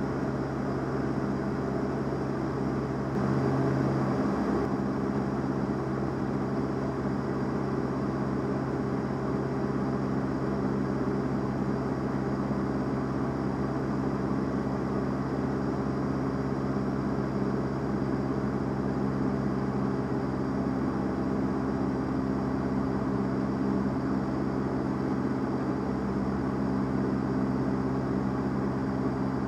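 Van's RV-7A's piston engine and propeller droning steadily in flight, heard from inside the cockpit, with a brief swell in level about three seconds in.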